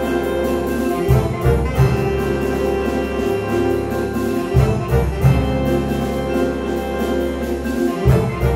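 Jazz big band playing live: saxophones and trombones sustaining chords over a bass line, with a few sharp drum accents.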